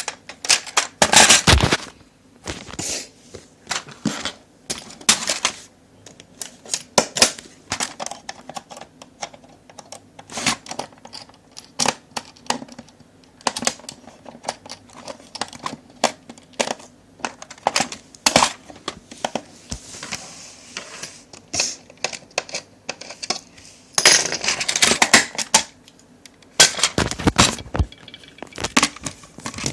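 Plarail toy level-crossing parts and packaging being handled while unboxed: irregular plastic clicks, taps and rustles, with louder bursts of handling about a second in and again near the end.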